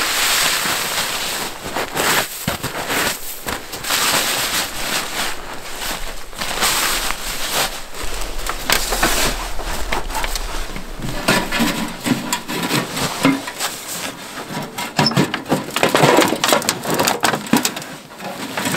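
Crunching and scraping of a snow shovel digging packed snow, then irregular metal knocks and scrapes as a small sheet-metal wood stove and its chimney pipe are handled and fitted together.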